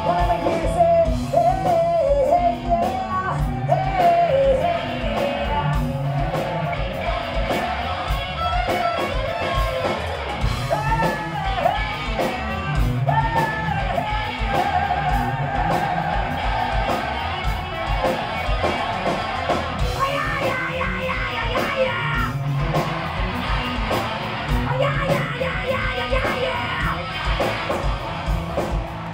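Live hard rock band playing: a male singer's high, near-shouted vocals over electric guitar, bass guitar and a steady drum beat.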